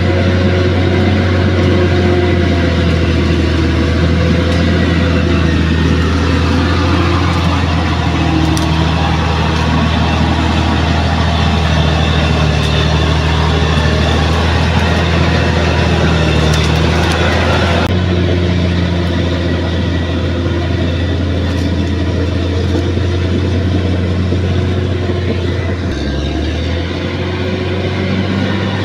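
Bulldozer's diesel engine running steadily, its note shifting slightly near the end.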